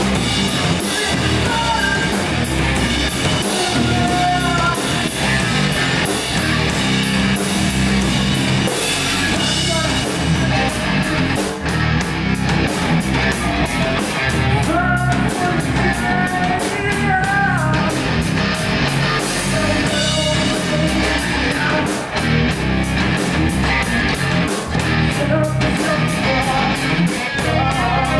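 A live rock band playing loud, heavy rock: electric guitars, bass and a drum kit pounding steadily, with a vocalist singing at times.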